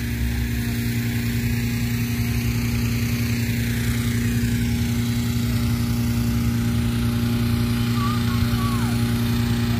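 Small gasoline engine of a balloon inflator fan running steadily, blowing cold air into a hot-air balloon envelope during setup.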